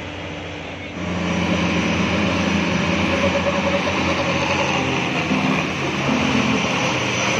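Engines of heavy diesel trucks and a bus running, getting louder about a second in.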